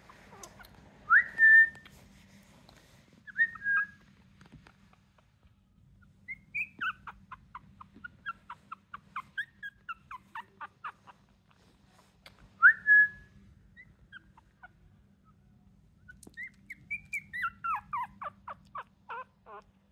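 Two-week-old Chihuahua puppies squeaking: three loud, high, rising whistle-like squeals, two near the start and one past the middle, and two runs of quick short peeps that fall in pitch, about four a second.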